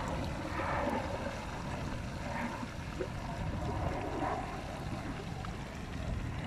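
Fish frying in a pan of oil over a wood fire, a steady sizzle, with wind rumbling on the microphone.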